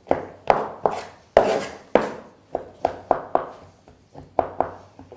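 Knife chopping on a wooden pastry board: about a dozen sharp, irregular strikes, stopping about five seconds in.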